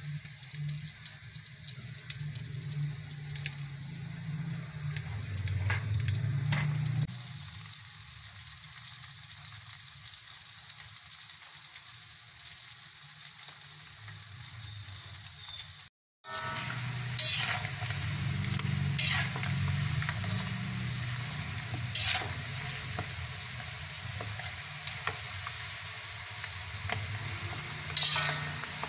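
Floured tiny impun fish deep-frying in hot oil in a wok: a steady sizzle. It cuts out briefly about halfway through, then resumes with a few sharp clicks.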